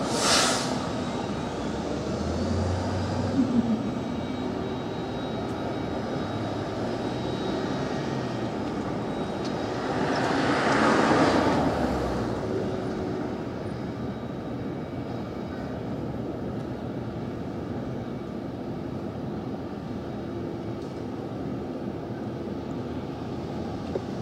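Steady city-street traffic noise, with one car passing close by about ten seconds in, its sound swelling and fading over a couple of seconds.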